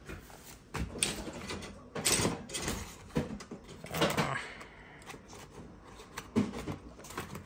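A scattered series of light knocks, clicks and rustles from cardboard spice packets being handled on a wire wall rack in a kitchen.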